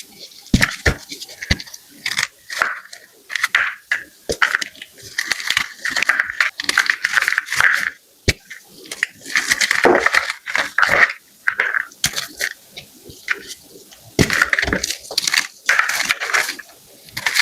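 Blocks of gym chalk being crushed: crunching and crackling in bursts of about a second or two, with sharp snaps and short pauses between them.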